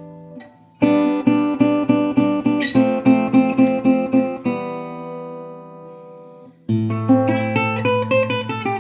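National Style O resonator guitar with a nickel-plated brass body, played as a blues demo: a fast run of repeated picked notes, about four a second, then a chord left to ring out, and another phrase starting near the end.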